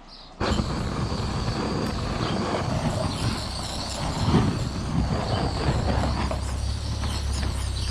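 Gas blowtorch flame roaring steadily, lit abruptly about half a second in, heating the outboard's stuck flywheel to free it from the crankshaft.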